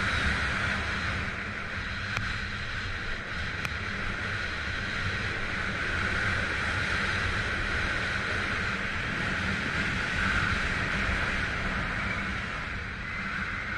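Telemark skis running fast on groomed snow, a steady hiss, while wind rumbles and buffets across the camera microphone.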